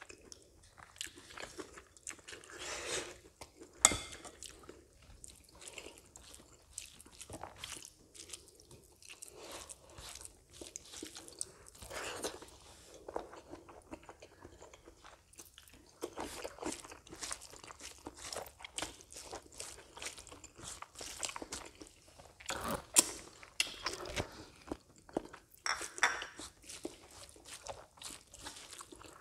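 Close-miked chewing of a mouthful of rice and fried potato, heard as irregular clusters of short crunches.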